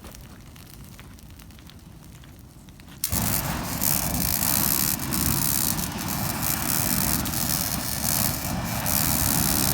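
A burning trash pile crackles quietly, then about three seconds in a handheld flamethrower is fired: a sudden, loud, steady rush of burning fuel that keeps going.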